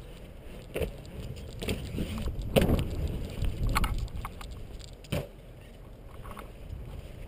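Mountainboard rolling over concrete on its large tyres, a steady low rumble broken by a few sharp knocks, the loudest about two and a half seconds in.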